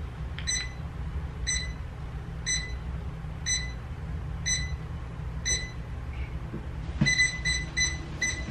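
Walking-pad treadmill beeping as it is worked by its remote: a short high beep about once a second, six times, then a quicker string of beeps near the end, over a low steady hum.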